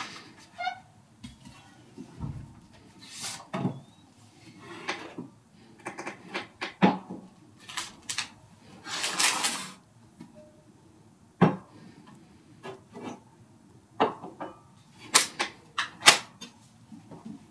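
Irregular knocks, clicks and clattering, with a longer scraping or rustling noise about nine seconds in.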